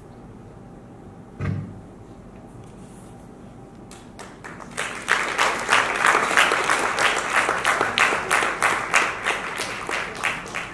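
A single thump about a second and a half in, then an audience clapping, starting about four seconds in and building into steady applause that dies away at the end.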